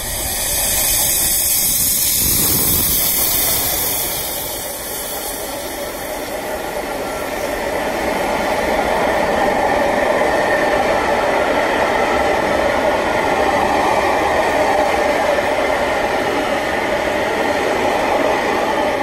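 Rebuilt Merchant Navy class steam locomotive 35018 British India Line passing close by with its train. A loud rush of the engine going by comes in the first few seconds, then the long steady rumble and clatter of the coaches' wheels on the rails, with the rails twanging loudly in the heat.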